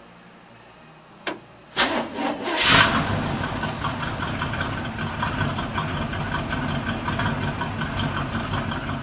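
1963 Chevrolet C10 pickup's engine being started: a click a little over a second in, the starter cranking briefly, then the engine catches with a burst at about three seconds and settles into a steady idle.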